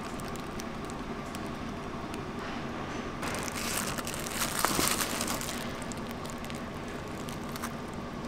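Disposable plastic glove crinkling against a cardboard pizza box as a slice is taken, a rustle lasting a couple of seconds in the middle, over a steady low hum.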